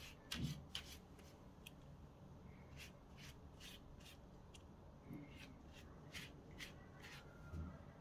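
Faint, soft strokes and dabs of a silicone pastry brush spreading beaten egg over raw puff pastry, with scattered quiet ticks.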